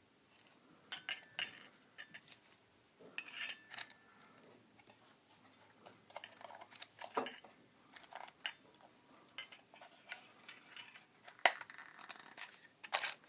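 Flashlight being handled and unscrewed by hand: scattered clicks, light clinks and short scrapes of its parts, with a sharp click about eleven seconds in and another near the end.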